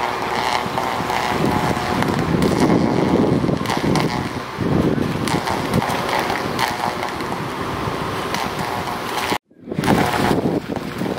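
Wind buffeting the microphone outdoors, a loud, gusty rumble. The sound cuts out abruptly for a moment about nine seconds in.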